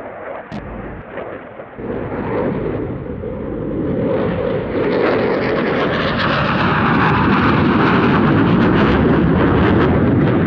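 Jet noise from a Dassault Rafale C's twin Snecma M88 turbofans in a display flypast, building over the first few seconds to a loud, steady roar with a crackling edge through the second half.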